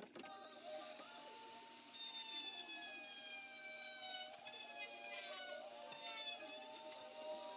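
Dremel rotary tool with a small bit switched on, its whine rising as it spins up, then grinding to flatten the plastic inside a Nerf blaster shell from about two seconds in, its pitch sagging and shifting under load.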